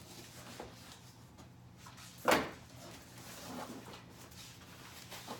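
Quiet handling of a cardboard shipping box, with one sharp knock a little over two seconds in.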